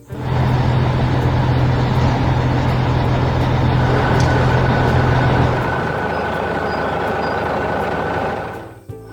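Heavy construction machine engine running loudly and steadily, a sound effect for an animated excavator or material handler. A deep hum eases off about six seconds in, a faint steady high tone joins partway through, and the sound dips away near the end.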